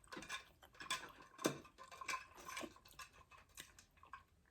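Someone drinking a peach Arnold Palmer close to the microphone: faint, irregular sipping and swallowing clicks, the strongest about a second and a half in.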